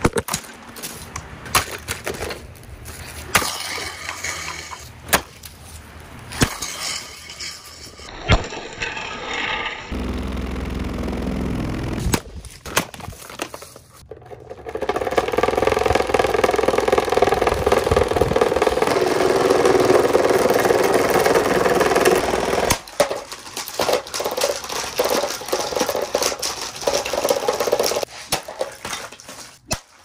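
Plastic Lasko table fan being broken up: a string of sharp cracks and knocks, then a louder sustained sound at a steady pitch from about fifteen seconds in until near the end.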